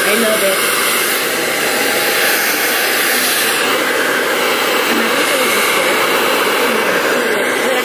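Handheld hair dryer running steadily at full blow, a loud even rush of air, as it blow-dries a person's hair.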